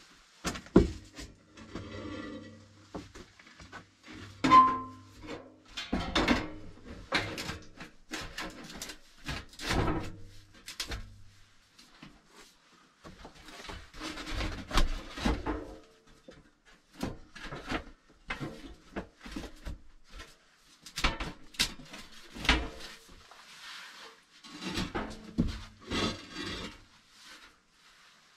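Close-by handling sounds: irregular knocks, thuds and scraping. There is a short ringing tone about four and a half seconds in.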